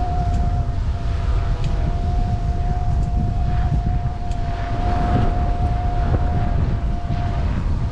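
Wind rushing over the microphone of a GoPro on a moving bicycle, with a steady high whine held at one unchanging pitch, which fades briefly near the end.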